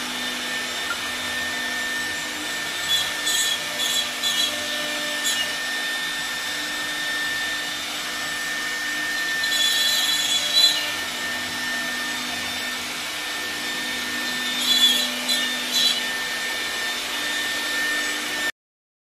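CNC wood router spindle running with a steady high whine while its bit carves wood, with rasping cutting noise rising in bursts every few seconds. The sound cuts off abruptly near the end.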